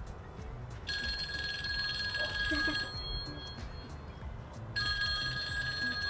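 Eufy doorbell chime alert tone previewed from the app: an electronic ringing chime of steady high tones that sounds twice, each time for about two seconds.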